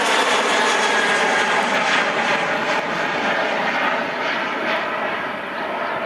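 Boeing 737-800 airliner's CFM56-7B turbofan engines at takeoff thrust, a broad rushing jet noise with a faint steady drone, slowly fading as the aircraft moves away.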